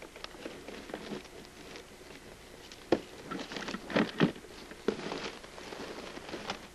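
Dry leaf litter on the forest floor crackling and rustling as it is disturbed, in scattered crisp crackles, with a few louder snaps about three to five seconds in.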